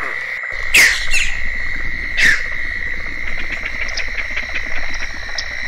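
Wetland nature soundscape: a steady, high-pitched insect trill runs under three sharp, steeply falling bird calls in the first couple of seconds. After that comes a run of short chirps.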